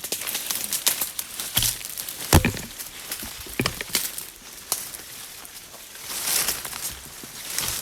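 Irregular rustling and crackling of dry leaves and twigs underfoot as people walk through jungle undergrowth, with a sharper snap or knock about two seconds in.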